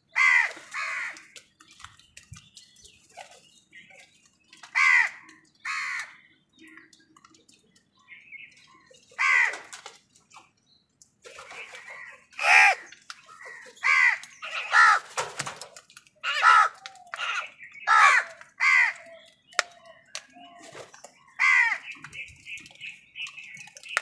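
A flock of house crows cawing: harsh calls, singly and in quick pairs, a few seconds apart at first and coming thick and fast in the second half.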